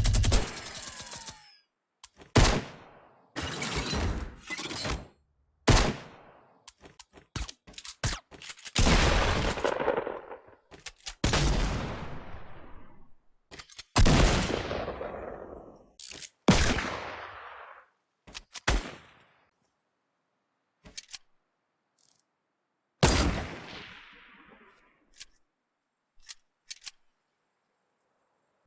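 Gunshot sound effects: a burst of rapid automatic fire that ends about a second in, then a string of separate single shots, many with echoing tails that fade over one to two seconds. Some lighter clicks and pops come in between, and the gaps grow longer near the end.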